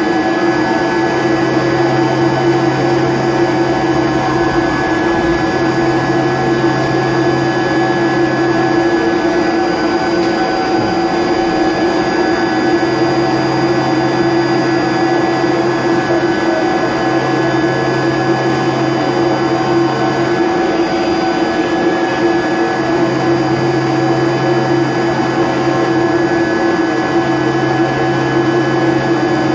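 XYZ 560HD CNC mill running flat out, roughing aluminium with a WNT Circleline DLC-coated end mill: a loud, steady spindle-and-cutting whine with a few clear tones. A lower hum cuts in and out several times, for several seconds at a stretch.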